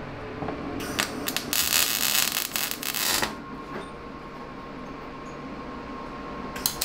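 Metal fabrication on a steel tube chassis: a loud, harsh hiss with a few sharp clicks starts about a second in and lasts about two seconds, and a second burst comes near the end. Between the bursts, while a weld is being made, there is only a faint steady tone.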